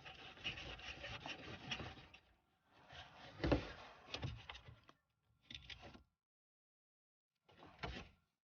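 A screwdriver working the Phillips head screw that holds the fog light in place, heard as bursts of scraping and rubbing against plastic, with a sharp knock about three and a half seconds in and short silent gaps between.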